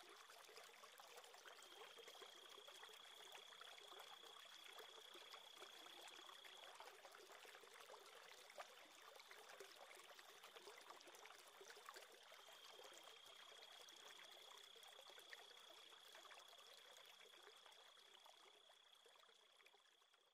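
Faint flowing-water ambience, a soft trickling hiss with a faint steady high tone above it, fading out over the last few seconds.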